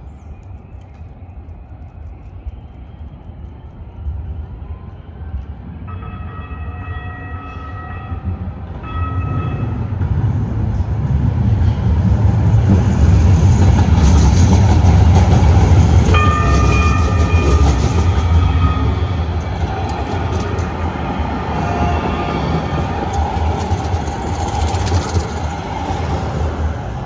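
New Jersey Transit Hudson-Bergen Light Rail train passing close by on street track, its low rumble building to a loud peak midway and then easing off. A horn sounds a long blast and then a short one as the train approaches, and sounds again for a few seconds while it passes.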